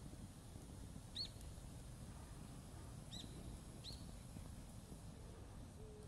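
A small bird chirping three short times, faint, over a low steady rumble.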